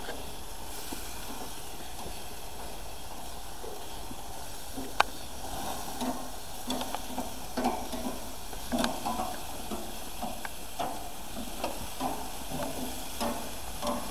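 Chicken pieces sizzling on hot grill grates while metal tongs turn them over, with repeated clicks and scrapes of the tongs on the grates, the sharpest click about five seconds in.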